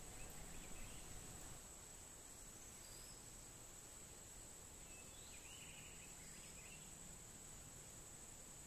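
Faint outdoor ambience: a steady, high-pitched insect drone, with a few faint chirps about five to six seconds in.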